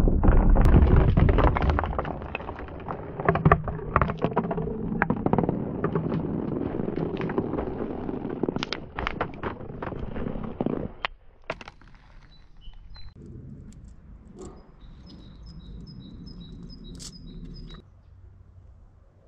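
Glass marbles rolling and clattering down a clear ribbed plastic tube, a steady rumble full of quick clicks as they knock together and against the walls. After about eleven seconds it drops to a few scattered clicks, and a bird chirps a quick run of short high notes near the end.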